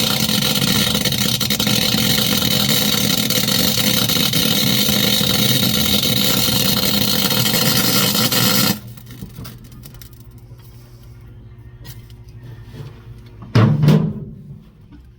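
MIG wire-feed welder running a steady weld for about nine seconds, building up weld on a broken cylinder-head bolt to get a grip for extracting it, then stopping abruptly. A single loud knock comes near the end.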